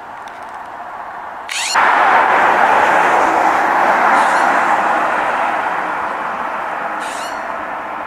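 A motor vehicle driving past: a broad road noise that swells sharply about two seconds in and slowly fades.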